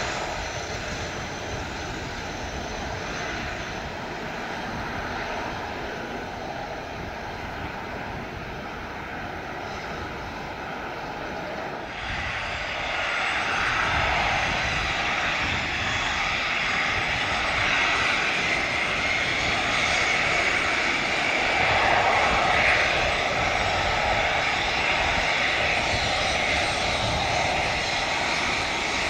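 Fairchild Dornier 328JET's twin Pratt & Whitney PW306B turbofans running at low power as the jet taxis, a steady jet hiss and whine. About twelve seconds in the sound jumps louder and brighter, with a higher whine.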